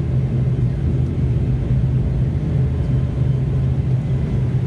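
Steady low drone of an ATR 72's turboprop engines and propellers heard from inside the passenger cabin, with a constant low hum running under it.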